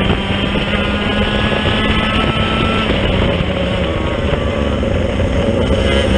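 Racing kart engine running hard under the seat, heard onboard at speed. Its pitch holds steady for the first half and then shifts slightly lower, with wind rushing over the microphone.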